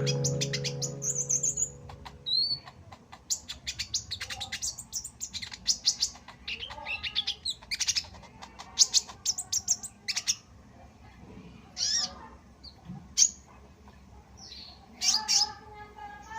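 Caged songbirds chirping: rapid runs of short, high, sharp notes with a few louder single calls. Background music fades out in the first couple of seconds.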